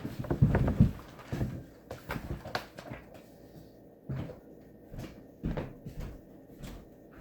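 Irregular knocks and clatter of objects being handled, loudest and busiest in the first second, then sparser taps.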